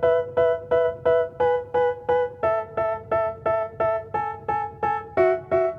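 Background music: a piano-like keyboard plays evenly repeated notes, about three a second, with no vocals.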